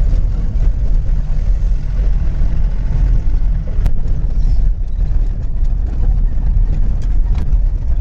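Vehicle engine running with a steady low rumble, heard from aboard the moving vehicle, with a sharp click about four seconds in.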